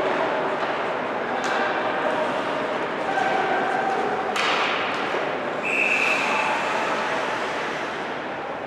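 Ice hockey arena game sound: a steady mix of spectator and player voices with calls and shouts, sharp knocks of puck and sticks, the loudest a crack about four and a half seconds in, and a short high tone near six seconds.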